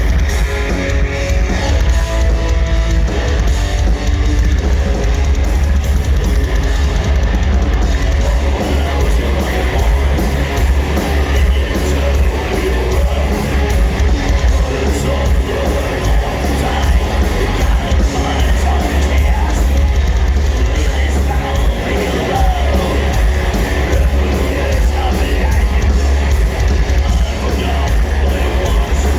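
Black metal band playing live at full volume: distorted electric guitars, bass and drums in a dense, unbroken wall of sound with a heavy low end.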